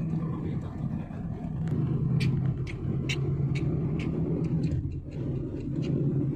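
Road and engine noise inside a moving car's cabin: a steady low hum and rumble. Through the middle comes a run of light ticks, about two a second.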